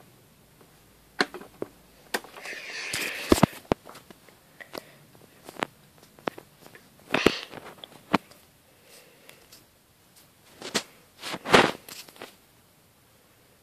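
Handling noise close to the microphone: scattered sharp clicks and knocks with a short stretch of rustling, and the loudest knocks about eleven seconds in.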